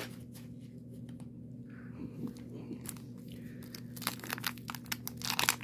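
A 1990 Donruss wax pack's waxed-paper wrapper being torn open and crinkled by hand: a quick run of papery crackles starting about four seconds in. Before that there is only a faint steady hum.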